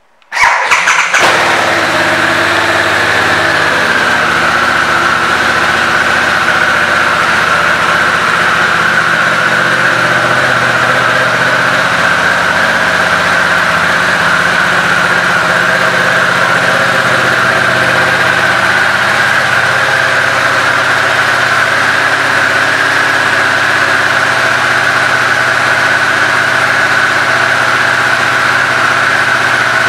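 Harley-Davidson Sportster S's liquid-cooled Revolution Max 1250T V-twin starting about half a second in, then idling steadily through the stock exhaust. The idle eases down a little over the first few seconds after it catches.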